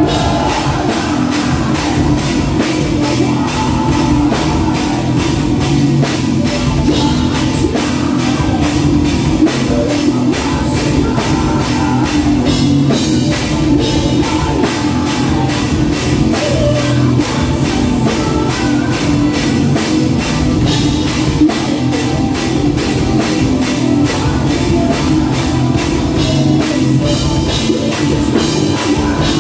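Metal band playing live at full volume through a club PA: distorted electric guitars and bass over a fast, steady drum beat.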